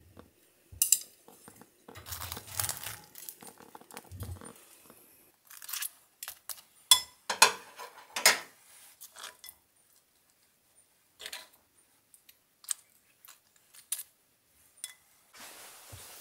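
Kitchen handling sounds: a spoon scraping and tapping against a ceramic bowl of walnut paste, with scattered clicks and clatters in irregular clusters and a quiet pause about two-thirds of the way through.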